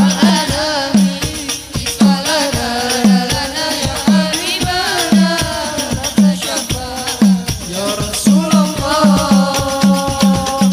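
Al Banjari sholawat music: hand-played rebana frame drums keep a steady beat, a deep low stroke falling about once a second and coming quicker near the end, with crisp high drum strokes and voices holding long sung notes over them.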